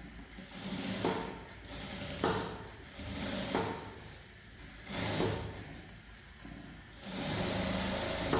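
Sewing machine running in about five short bursts, each lasting up to a second or so, the longest near the end.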